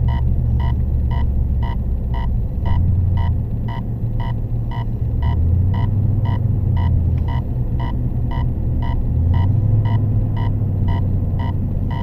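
A car's turn-signal flasher ticking steadily, about two to three ticks a second, over the low hum of the engine and road heard inside the cabin.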